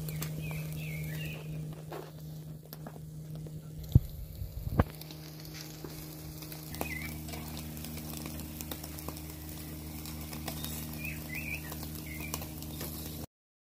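Meat skewers sizzling over burning pine-cone coals in a charcoal mangal, with steady crackling and a low hum, and two sharp metal knocks from the skewers about four and five seconds in. The sound cuts off suddenly just before the end.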